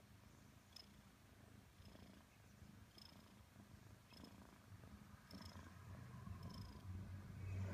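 Maine Coon kitten purring softly and steadily while its chin and chest are stroked, growing a little louder near the end.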